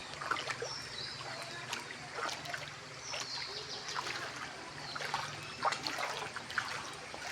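Floodwater trickling and sloshing, with irregular small splashes.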